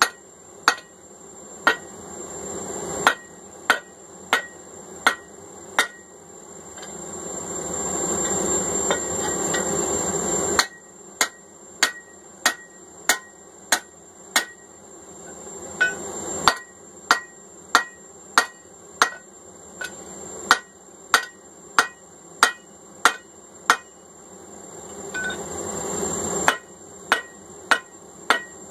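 Hand hammer striking a drift to open the punched eye of a hot steel bar on an anvil: sharp ringing blows in runs, about one to two a second. Twice a rushing noise builds over several seconds between runs of blows and cuts off suddenly.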